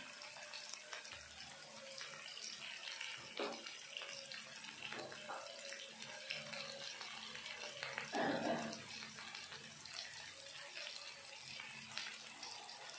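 Sliced onions and green chillies sizzling steadily in hot oil in a wok, with a few faint clicks and one short, louder sound about eight seconds in.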